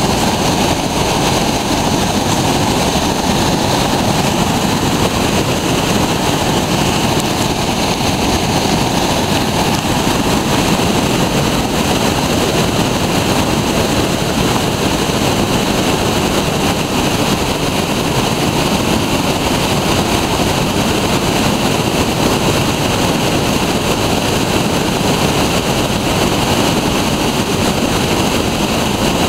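Whitewater rapids rushing over and around boulders: a loud, steady roar of water.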